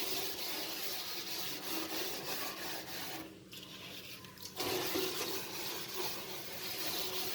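Scrubbing of gas-stove parts in a soapy salt-and-soda cleaning mix: a steady rough rubbing noise that stops for about a second and a half near the middle, then resumes.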